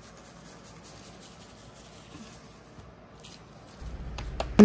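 Dry seasoning powder sprinkled from a pouch onto diced raw potatoes and vegetables in a slow-cooker crock: a faint, soft hiss.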